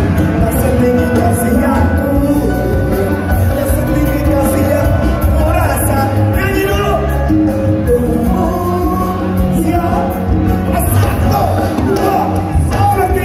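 Loud live music with a singer, the sung line wavering over a heavy, steady low end.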